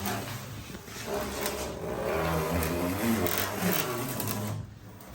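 A small electric motor whirring steadily, with a few light clicks, then stopping shortly before the end.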